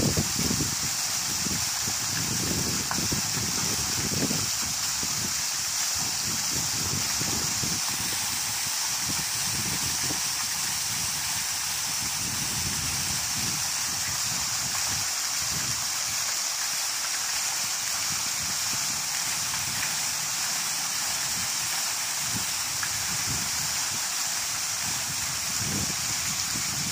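Waterfall rushing in a steady, unbroken hiss, with an uneven low rumble of falling water underneath.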